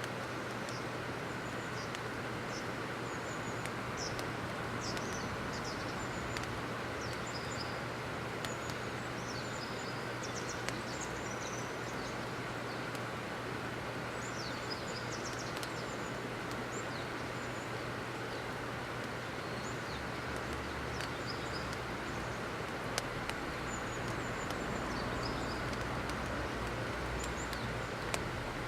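Short, high bird chirps, scattered in loose clusters, over steady outdoor background noise with a constant low hum.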